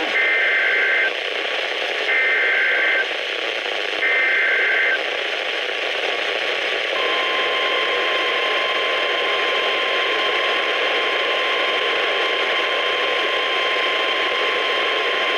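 NOAA Weather Radio Emergency Alert System broadcast heard on a weather radio through static hiss. There are three one-second bursts of the SAME header's warbling data tones, about a second apart, and then, from about seven seconds in, the steady 1050 Hz warning alarm tone that opens a new alert.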